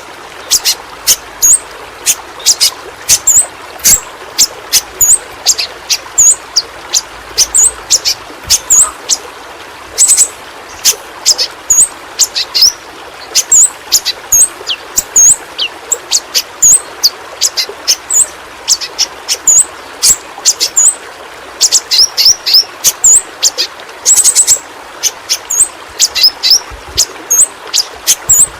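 Yellow-rumped flowerpecker (pentis pelangi) calling: a rapid, irregular string of short, very high, sharp chips and small hooked notes, over a steady hiss.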